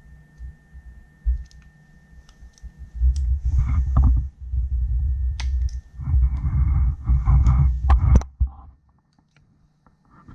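Hands working at a two-stroke jet ski piston on its connecting rod: small metallic clicks and ticks as the wrist-pin circlip is picked at. Two stretches of heavy rustling and rubbing from the handling come about three and six seconds in.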